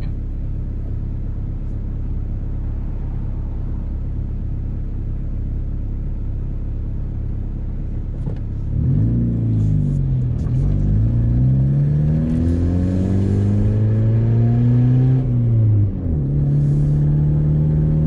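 1998 Honda Civic hatchback's engine idling, heard from inside the cabin. A little over eight seconds in the car pulls away and accelerates, the engine pitch climbing and falling back with the gear changes, with a sharp drop about sixteen seconds in before it settles into steady running.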